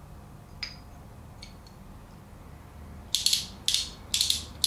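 Pawls on a Lewmar Ocean winch gear pack ratcheting as the gear is turned by hand: four short bursts of rapid clicking in the last second and a half, after a few light metal clicks.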